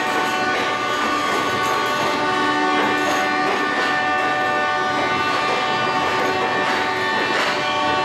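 Electric locomotive horn, the WAP-4E hauling the Gujarat Mail, sounding one long continuous blast of several pitches at once. Under it, a MEMU's wheels rumble and click as it rolls into the platform.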